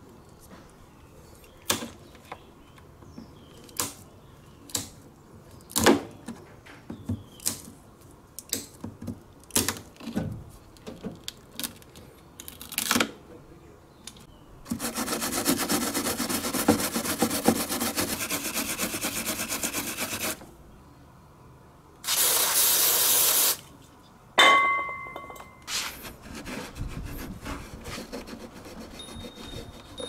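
Nippers snipping and prying the glued plastic drain-hose end off a washing machine's drain outlet: a run of sharp, irregular clicks and snaps. Then a wire brush scrubbing leftover adhesive off the plastic outlet, a steady scratching for about six seconds, followed by a shorter, louder burst of noise and a sharp clack with a brief ring.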